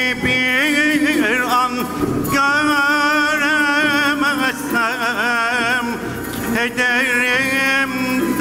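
A male solo voice sings a Turkish art music (sanat) song in long, held, melismatic phrases with heavy vibrato, over a quiet instrumental ensemble accompaniment. Brief breaths separate the phrases, about two seconds in, near four and a half seconds, and around six seconds.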